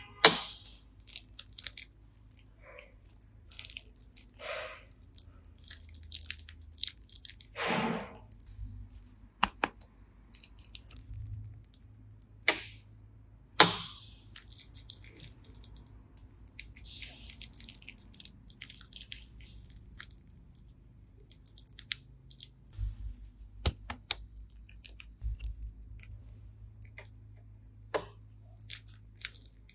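Glitter slime being squished and kneaded by hand: sticky crackles, pops and squelches, with a few sharp snaps, the loudest right at the start and about 14 seconds in.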